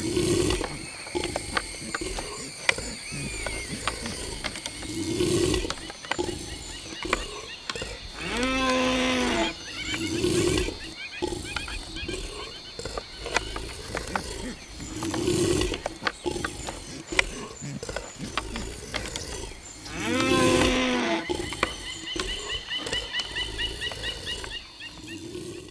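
Rutting red deer stags roaring during a fight: two long, deep roars that fall in pitch, about a third of the way in and again past two-thirds, with shorter low calls between them. Sharp clicks and knocks are scattered throughout.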